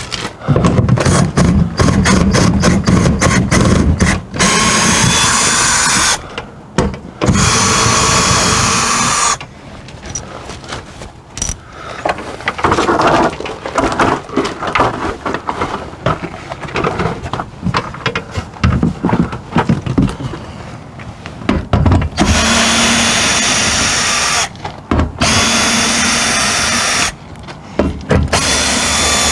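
Power driver backing lag bolts out of an RV wall in a series of runs of a few seconds each, with short pauses between them.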